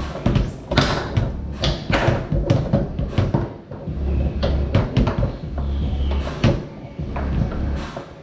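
Foosball play on a Tornado table: a fast rally of sharp, irregular knocks as the ball is struck by the players on the rods and bangs off the table walls.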